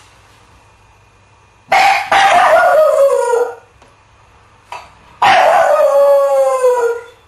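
Small black dog howling twice, each howl about two seconds long and sliding down in pitch.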